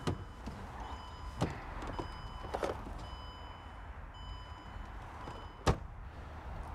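Small clicks and knocks of a car's interior as a hand works at the dashboard, the sharpest click near the end as the glovebox latch is pulled. Under them runs a low steady rumble, with faint high steady tones coming and going.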